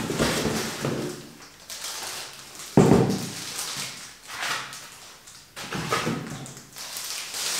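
Cardboard packaging being handled and pulled off a metal tripod: irregular scraping and rustling of cardboard, with one loud thump about three seconds in.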